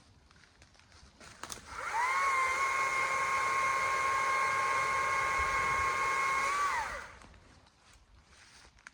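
Chainsaw revved up to full throttle, held steady for about five seconds, then let back down to idle.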